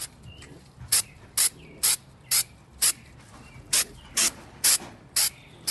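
Rust-Oleum Stone textured aerosol spray can hissing in short bursts, about two a second, with a brief pause partway through.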